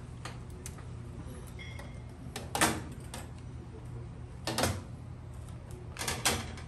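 Sheet-metal panels of a gas range clanking and rattling as they are lifted and set in place, in three short bursts about two seconds apart, over a steady low hum.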